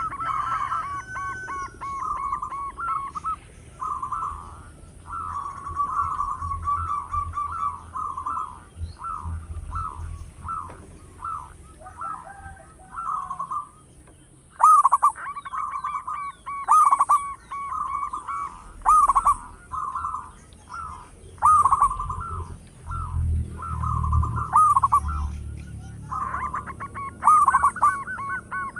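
Zebra dove (perkutut) cooing: repeated phrases of quick, staccato coos, one burst after another with short pauses between them.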